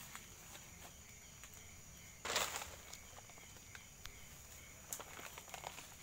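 Night insects trilling steadily in a high thin tone, with scattered footsteps and light clicks through undergrowth and one loud, brief rustle about two seconds in.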